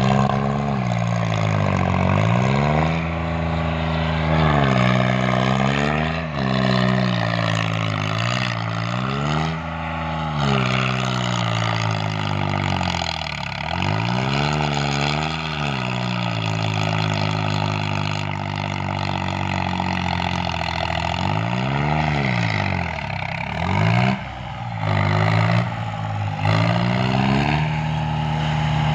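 New Holland 3630 tractor's diesel engine revving hard and easing off again and again, its pitch climbing and dropping every few seconds, as the throttle is worked to hold the tractor up on its rear wheels in a wheelie.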